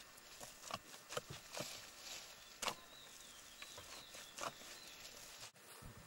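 A digging tool's blade chopping into loose dry earth: a handful of irregular, faint knocks and scrapes.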